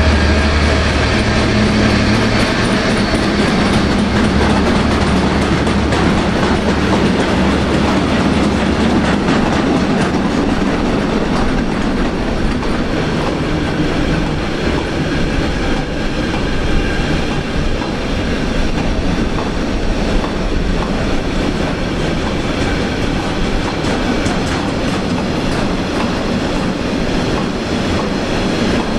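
Freight train passing close by: a steady rumble with the wheels clattering over the rails. A low hum is strong for the first several seconds and fades about nine seconds in.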